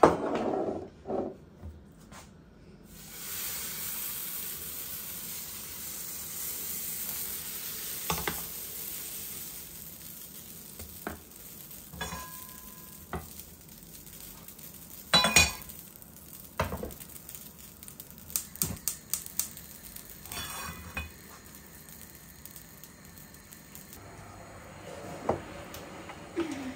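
Khanfer batter (semolina pancake) sizzling in a hot non-stick pan on a gas hob. The sizzle starts a few seconds in and slowly dies down as the pancake cooks, with scattered clinks and knocks of pans and utensils, the loudest about halfway through.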